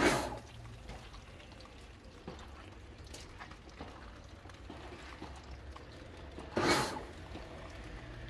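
Water in a freshly jet-washed engine bay: two brief hissing splashes, one at the very start and one about seven seconds later, with faint low background noise between.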